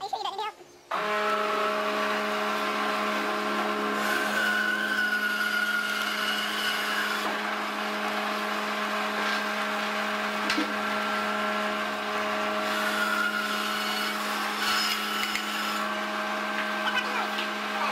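Direct-drive wood bandsaw switched on about a second in, its motor humming steadily, with the blade cutting through a thick tree limb and the cutting noise growing louder in two stretches.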